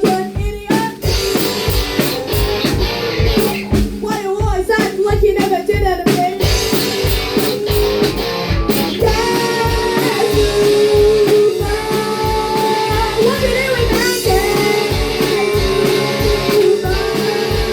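Rock band playing live: guitar and drum kit with a singing voice over a steady beat.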